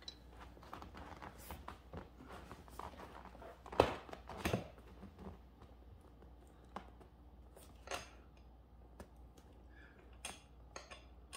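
Scattered small metallic clicks and clinks of gaming-chair parts and screws being handled during assembly, with two louder knocks about four seconds in.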